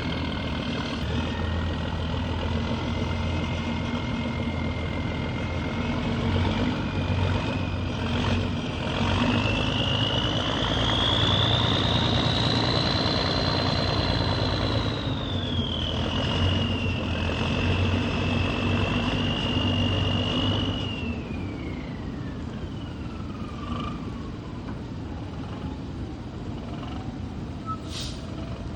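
Tug boat's diesel engine pulling under load, with a high whine that follows the revs. The engine is opened up about a third of the way in and the whine climbs. About two-thirds in it is throttled back, the level drops and the whine falls away steadily.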